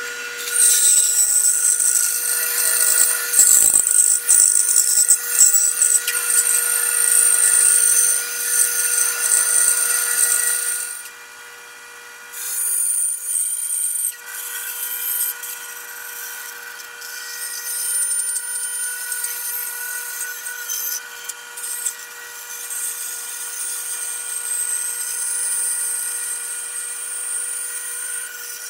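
Band saw running and cutting a thick wooden board along a curved outline: a steady motor-and-blade hum under the bright hiss of the blade in the wood. About eleven seconds in the cutting stops briefly and the saw runs on its own, then the cutting resumes in shorter, uneven passes.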